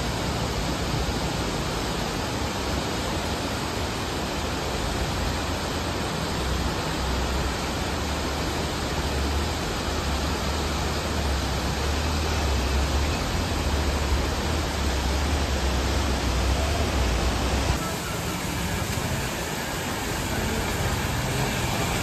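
River water rushing over rocks, a steady even rush with a deep rumble underneath that drops away about 18 seconds in.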